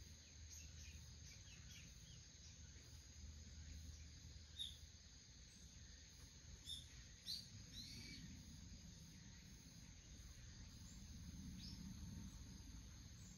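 Quiet garden ambience: a few faint, short, high bird chirps scattered through the middle, over a low steady hum.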